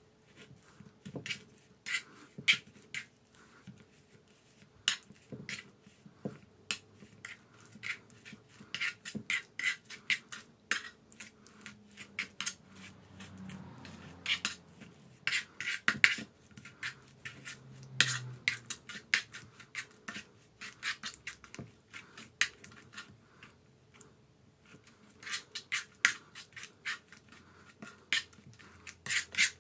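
A metal spoon scraping and clicking against a nonstick frying pan as it mashes and stirs egg yolks, in quick irregular strokes with short pauses.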